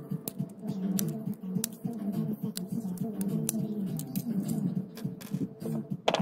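Background guitar music playing a continuous run of notes, with sharp light clicks and taps over it, one louder tap at the very end.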